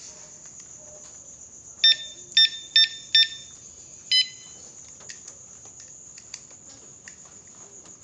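Electronic beeps from a bike alarm cable lock: four quick short beeps about two seconds in, then a single beep a second later, followed by a few faint clicks of the lock being handled. A faint steady high-pitched hiss runs underneath.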